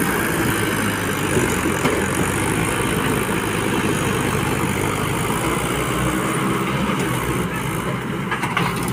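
Swaraj 843 XM tractor's three-cylinder diesel engine running steadily under heavy load as it drags a loaded sand trolley out of soft wet sand, the load heavy enough to lift the tractor's front wheels.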